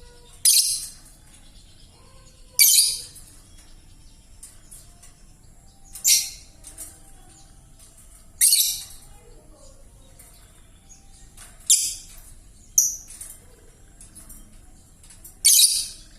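Young lovebird, still under five months old, giving seven short, harsh screechy calls spaced a second or three apart. Its voice is still hoarse and rough, as is usual for a bird this young.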